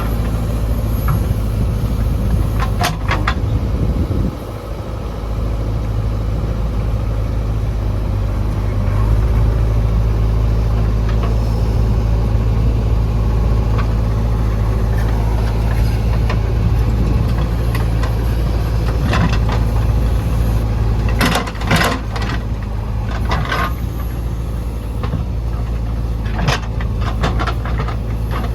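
JCB 3DX backhoe loader's diesel engine running steadily under work, getting louder about nine seconds in. Several sharp knocks come through it: one about three seconds in, a cluster around twenty-two seconds in, and another near the end.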